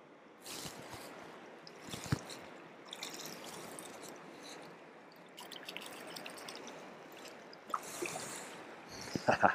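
Shallow stream water running over stones. About nine seconds in comes a burst of splashing as a hooked brown trout is drawn into a landing net.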